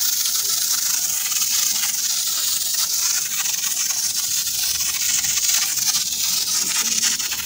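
Hand-pumped pressure foam sprayer spraying soapy snow foam onto a car's windows, its bottle pumped up hard beforehand. It gives a steady hiss of air and foam from the nozzle.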